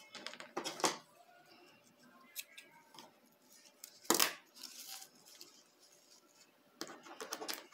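Handling sounds from a satin ribbon bow: thread drawn tight round its middle, a sharp scissors snip about four seconds in cutting the thread, then quick rustling as the ribbon loops are fluffed out near the end.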